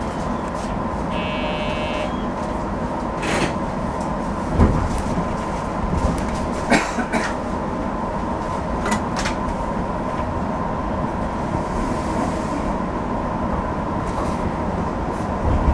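Cab interior of a JR 205-series electric train at a station stop: a steady hum with a thin constant whine, a brief electronic tone about a second in, and a few sharp clicks and knocks scattered through.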